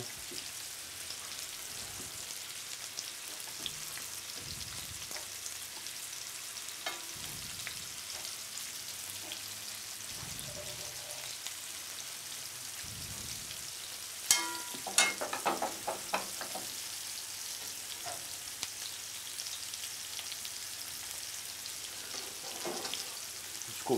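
Turbot fillet, langoustine tails and sage leaves frying in a pan, with a steady sizzle. A couple of sharp clinks come about two-thirds of the way through.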